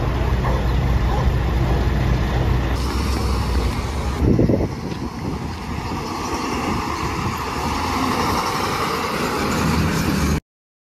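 Emergency vehicle engines running in street traffic as a police ambulance drives off and a police emergency service truck passes close by, the sound of the passing truck swelling over the second half. A brief loud blast about four seconds in, and the sound cuts off suddenly near the end.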